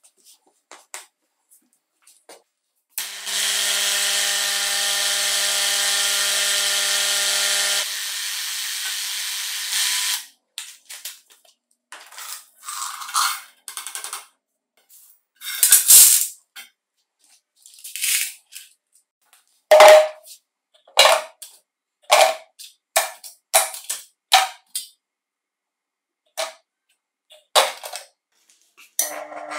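A steady hum with hiss for about seven seconds, its source unclear. Then a long run of separate clinks and knocks as small metal chainsaw parts are handled and dropped into a steel strainer, tray and glass jar for cleaning. The loudest is a ringing clink about twenty seconds in.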